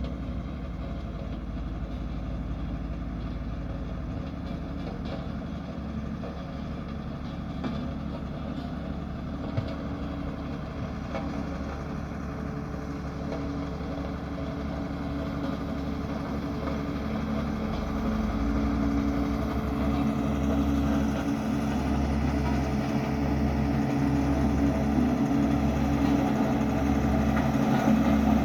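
Diesel engine of a Dynapac road roller running steadily, growing louder about two-thirds of the way through, when a low throb starts pulsing about once a second.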